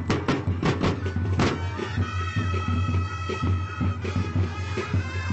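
Drum and bugle corps playing: a quick run of drumbeats, then about two seconds in the horns hold a sustained chord over lighter drumming, and the drums pick up again near the end.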